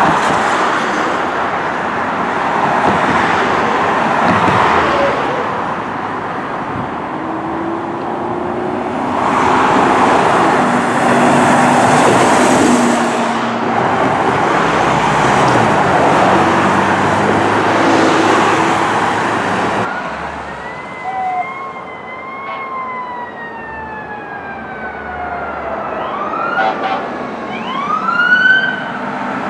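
Fire truck responding: loud, steady rushing vehicle noise for most of the stretch, then an electronic siren wailing in slow falls that switches to a fast yelp near the end.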